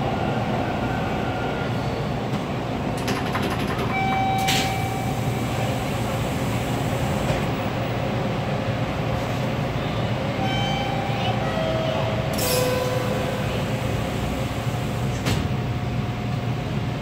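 Toronto subway train running through a tunnel, heard from inside the car: a steady, dense rumble of wheels on rail. A few brief pitched squeals come about four seconds in and again around ten to thirteen seconds, and a few sharp clicks fall scattered through it.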